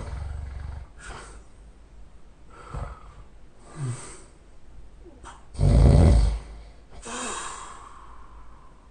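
A man snoring loudly in irregular snores and snorts of varying strength, the loudest about two-thirds of the way through.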